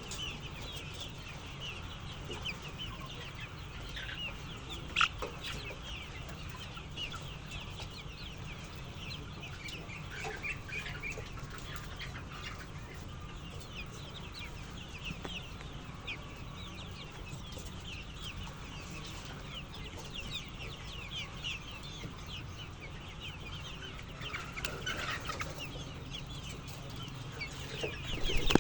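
A flock of chickens clucking and calling without pause, many short high calls overlapping, over a steady low hum. A single sharp click about five seconds in.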